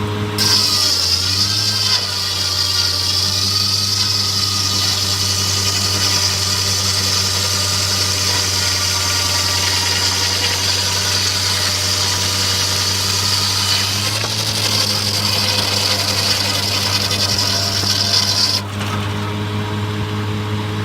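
Engine-driven circular sawmill running, with its blade cutting through a log: a loud high hiss sets in just after the start, the engine's pitch dips briefly as the blade bites, and the cut ends suddenly near the end while the engine keeps running steadily.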